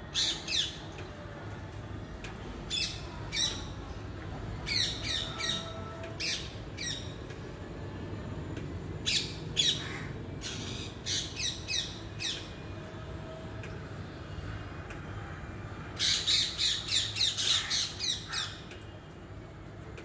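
A parrot calling in short, shrill squawks, in bursts of two to four, with a rapid run of about eight near the end that is the loudest. A steady low hum lies underneath.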